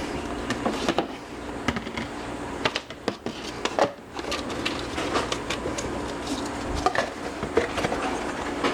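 Dishes and kitchenware being handled, with scattered clicks and knocks over the steady hum of a microwave oven running.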